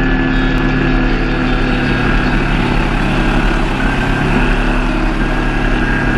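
Kawasaki Versys-X 250's parallel-twin engine running steadily at a cruise, heard from a camera on the bike itself, mixed with wind and road rush.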